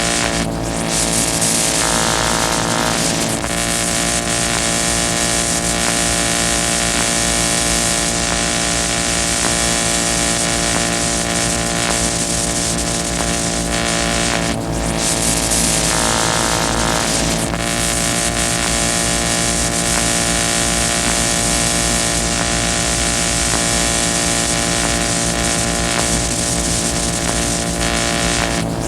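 Dense experimental noise music: many steady layered drones over a hiss, played as a loop that repeats about every fourteen and a half seconds, with a brief brighter, hissier stretch a couple of seconds into each pass.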